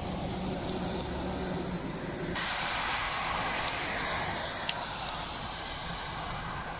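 Car tyres hissing on a rain-soaked road over a steady wash of rain and traffic noise, swelling about two and a half seconds in as cars pass, then easing off.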